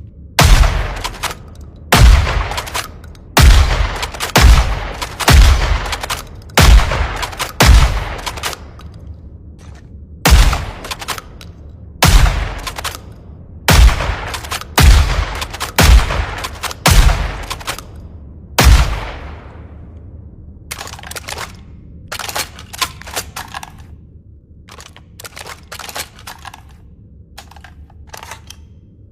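Shotgun shots fired one after another, roughly a second apart, about fourteen in all, each with a ringing, echoing tail. Through the last third the shots stop and a run of quieter, short mechanical clicks follows.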